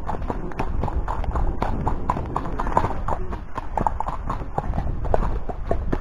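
Irish Sport Horse's hooves striking a gravel woodland path, a run of clip-clop knocks at about four a second.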